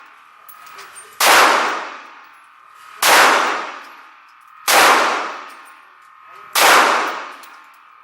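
Glock 17 9mm pistol firing four single shots at a slow, even pace, about one every two seconds. Each shot rings and echoes for about a second after it.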